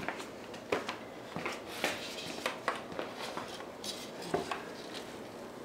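A stir stick knocking and scraping against a metal pot in a run of irregular sharp clacks, prying out stiff, half-set melted polyethylene that is hardening in the cold and will not come out. The clacks stop after about four and a half seconds.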